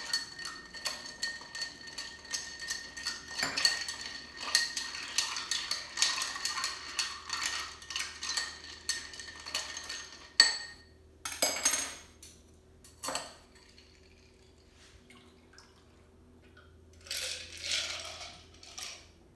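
A bar spoon stirs ice in a glass mixing glass for about ten seconds: rapid, dense clinking while the glass rings. A few single clinks follow as the strainer goes on, and near the end the stirred drink is poured through the strainer into a cocktail glass.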